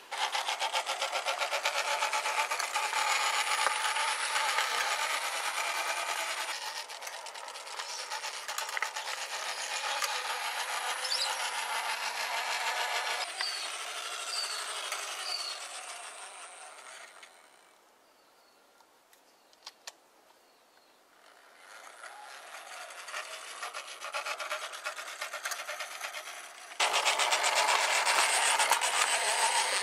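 1:24 scale model tram running on the garden track, its wheels and drive making a steady rough rolling rattle on the rails. It fades away to near silence about two-thirds of the way through, then builds back and turns suddenly louder near the end as the tram comes close again.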